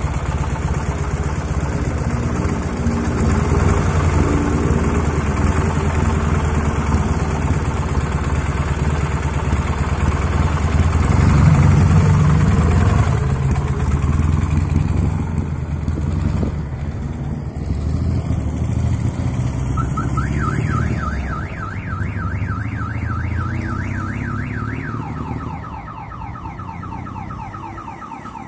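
Dnepr motorcycle's flat-twin engine running on a test ride with a newly replaced clutch, loudest about twelve seconds in as it pulls away and then fading as the bike rides off. In the last few seconds a car alarm sounds, a repeating rising whoop that changes to a different repeating tone.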